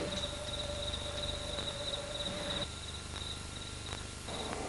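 Crickets chirping steadily in a faint pulsing trill, with a faint steady hum underneath that stops a little past halfway.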